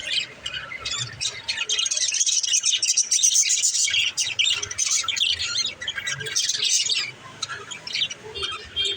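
Pet budgerigars chirping, squawking and warbling in a dense, continuous chatter, at its busiest in the middle and thinning out near the end.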